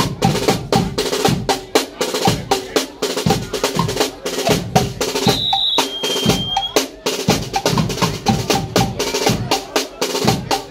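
Guggenmusik drum section playing a fast, rhythmic groove on snare drums, cymbals and a big bass drum, drums alone without the brass. About halfway through the drumming breaks off briefly under a high, steady whistling tone, then picks up again.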